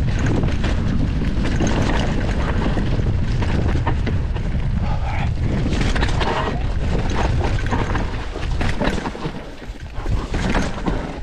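Mountain bike descending a rough singletrack trail: wind rumbling on the ride camera's microphone, with the bike rattling and knocking over roots and rocks. The noise eases and turns patchier near the end.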